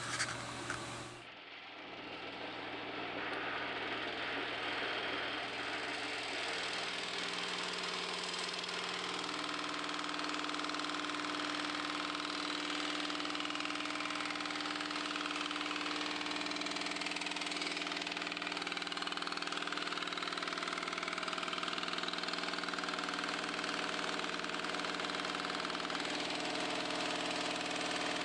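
Milling machine running steadily with a mechanical hum while a long metal strip is worked on its table; a higher steady tone joins about nine seconds in.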